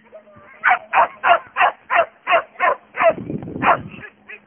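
A dog barking rapidly and repeatedly, about three sharp barks a second, in excited runs.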